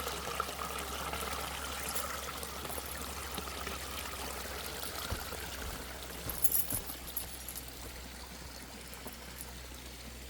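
Water trickling and running steadily, with a few light crackles about six to seven seconds in.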